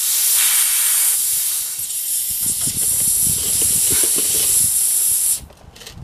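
Air hissing steadily out of a nail puncture in a light-truck tire's shoulder while a Dynaplug insertion tool is worked into the hole. The hiss cuts off suddenly about five seconds in, as the plug is pushed into the hole, with light scraping of the tool against the rubber.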